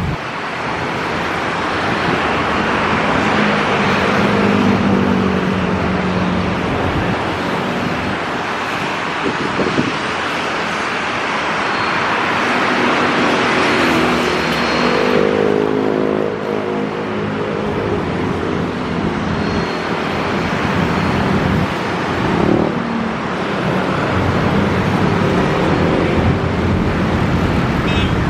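Steady rushing jet noise from a twin-engine widebody airliner on final approach, mixed with the hum of road vehicles passing close by several times.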